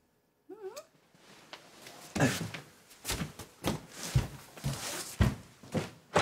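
A brief wavering vocal sound near the start, then heavy, hurried footsteps thudding across a floor, about two a second.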